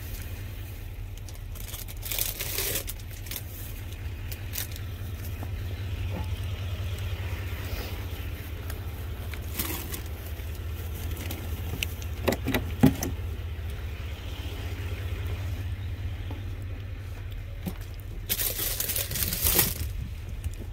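Steady low rumble of an idling engine or machine under intermittent handling noise: clicks, knocks and rustling as cardboard produce boxes and plastic bags are moved about. There is a sharp knock a little past halfway and a longer burst of rustling near the end.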